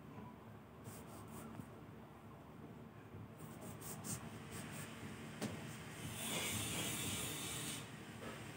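Faint rustling and rubbing with a few small clicks, then a louder hissing rustle about six seconds in that lasts about two seconds: hands handling something below the frame.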